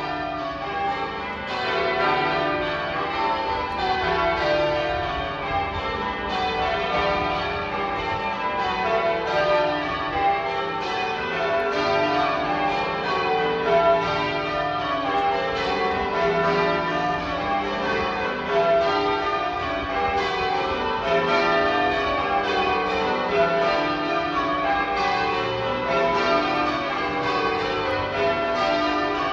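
Manchester Cathedral's church bells being change-rung: a continuous, even run of overlapping strikes at several pitches, each bell ringing on under the next.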